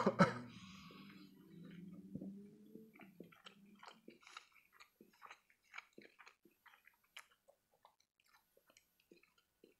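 A bite into an imitation crab stick right at the start, then close-up soft, wet chewing with many small mouth clicks that thin out and fade toward the end.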